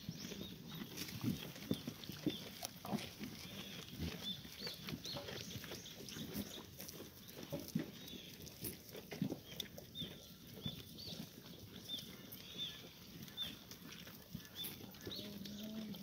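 Goats lapping and slurping water from a plastic tub, a run of irregular small wet clicks, with a short low goat call about a second before the end.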